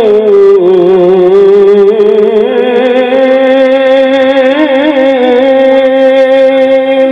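Male qori reciting the Quran in one long melodic breath: the voice dips in pitch at the start, winds through quick wavering ornaments in the middle, and settles on a long held note near the end.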